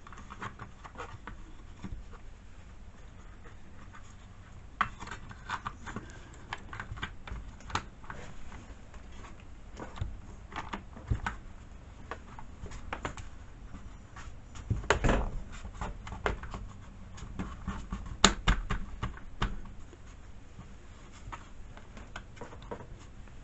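Chainsaw top cover being worked into place by hand: scattered clicks, taps and knocks of parts meeting, loudest in two clusters past the middle.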